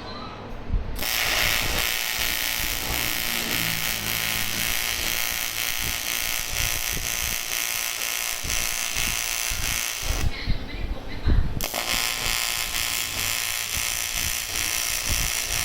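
AC TIG welding arc on aluminium, a steady high buzzing crackle as weld is built up on a shaft. The arc runs for about nine seconds, breaks off for about a second and a half, then strikes again.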